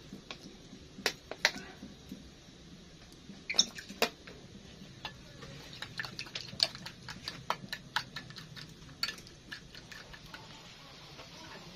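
Metal spoon clinking and scraping against a small ceramic bowl as a sauce is stirred: a run of sharp, irregular clicks, with the loudest ones a few seconds in.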